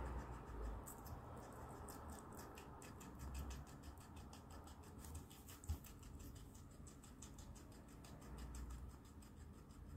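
Guinea pig chewing a strip of green bell pepper: a fast run of faint, crisp crunching clicks that thins out near the end. A single sharp knock a little past halfway is the loudest sound.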